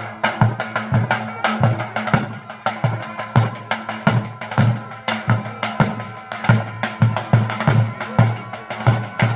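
Large double-headed Albanian drums (daulle) played as the procession marches, in a steady beat of deep booms with quicker, sharper stick taps between them.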